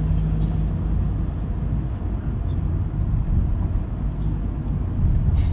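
Steady low rumble of a road vehicle under way: engine and road noise.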